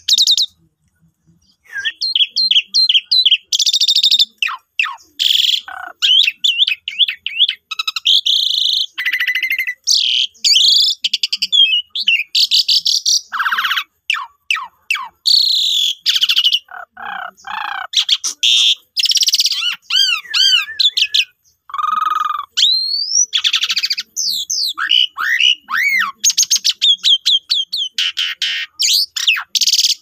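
Asian pied starling (jalak suren) in full song: a long, varied run of whistles, rising and falling glides and harsh buzzy rattles, broken only by a short pause about a second in.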